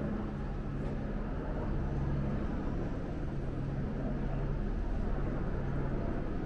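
Steady low engine hum of vehicle traffic in a city street.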